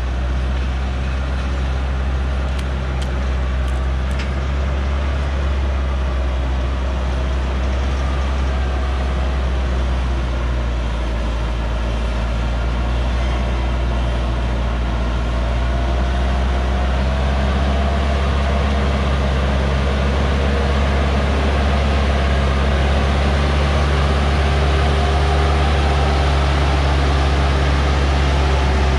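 Old-model Hoa Mai truck's diesel engine running steadily under a load of acacia logs as it creeps down a dirt forest track, growing gradually louder as it comes close.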